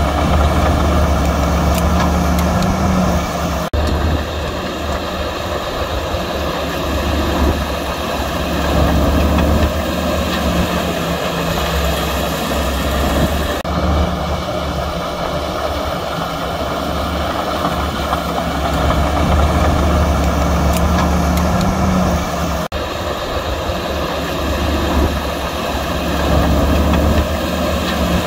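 Heavy diesel earthmoving machinery running steadily with a deep engine note, breaking off abruptly and picking up again about 4, 14 and 23 seconds in.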